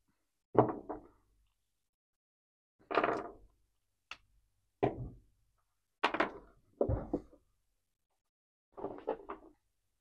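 Hard plastic action-figure parts clicking and knocking as limbs and pieces are popped off and pushed onto the joints. About seven short knocks come in small clusters every second or two, with silence between.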